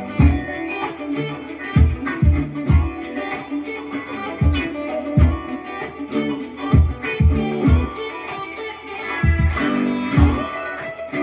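Electric guitar, a Stratocaster-style solid-body, playing funky chicken-pickin' country licks: short, snappy plucked notes over a backing drum beat with a steady kick and crisp cymbal ticks.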